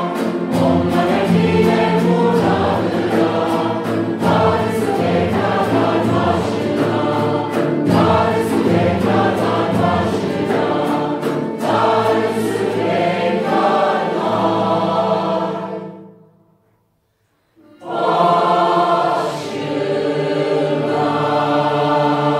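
Mixed choir singing a Turkish Cypriot folk song, accompanied by violins, cello and a strummed guitar-like instrument. The music breaks off into silence for about a second and a half some two-thirds of the way through, then resumes.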